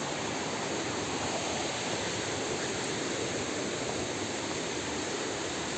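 Steady rushing of flowing water from a jungle stream or waterfall.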